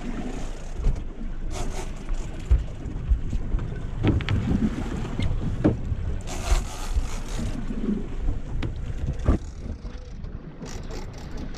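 Wind buffeting the microphone and water slapping against the hull of a small boat at sea, with a few sharp knocks and a brief rush of hiss a little past halfway.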